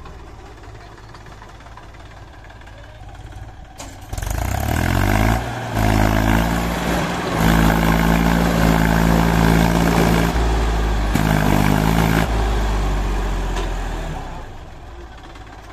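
Mahindra 275 DI tractor's three-cylinder diesel engine idling, then revved up about four seconds in and held at high revs under load for around ten seconds, with a few brief dips, before easing back toward idle near the end.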